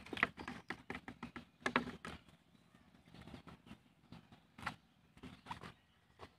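Faint, irregular clicks and taps, dense for the first two seconds and then sparse: a plastic-bottle fish trap being shaken and handled as small live fish drop into a plastic basin.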